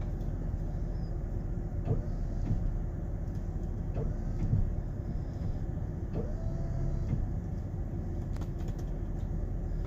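Chevy 3500 pickup's engine running steadily, heard from inside the cab as a low rumble, with a few faint knocks.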